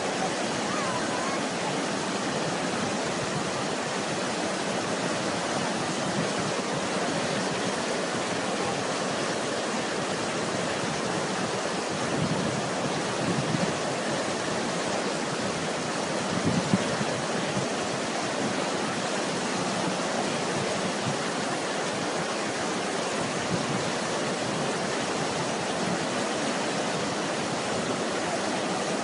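Fast-flowing floodwater rushing in a swollen river: a steady, constant noise, with a few brief bumps around the middle.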